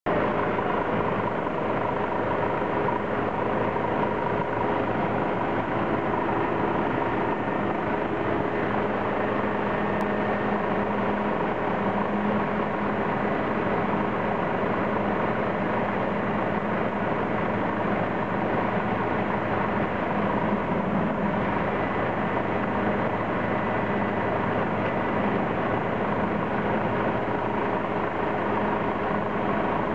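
Heavy diesel machinery running steadily: a dump truck's engine with its bed tipping up to unload concrete, together with a concrete paving machine, making an even din with a few steady hum tones.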